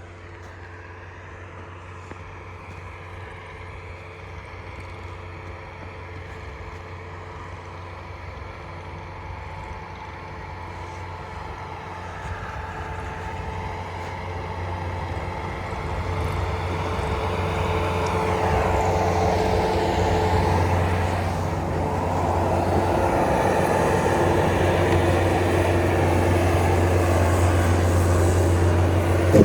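A vehicle engine running steadily and growing gradually louder, most so over the second half, as if working closer or under more load. It is likely machinery clearing ground for a wood-drop area.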